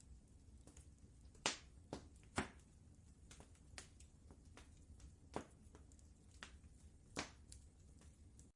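Wood fire crackling softly, with irregular sharp pops and snaps, a few of them louder, over a low steady rumble.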